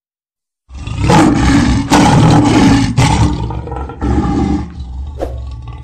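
Logo-intro sound effect: a loud rushing roar over a heavy low rumble, starting just under a second in and swelling in several surges about a second apart. It fades after about four and a half seconds, and one sharp hit lands near the end.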